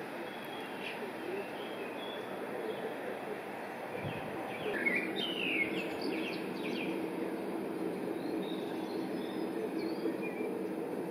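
Small birds chirping and singing over a steady outdoor background hiss, with a brief cluster of quick chirps about halfway through.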